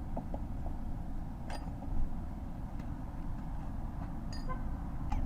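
Steady low background rumble, typical of traffic around a parking lot, with a few faint short chirps and clicks.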